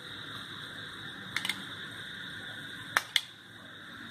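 A metal spoon clicking lightly against a glass bowl while scooping beaten yogurt, two pairs of short clicks about a second and a half in and about three seconds in, over a steady low hiss.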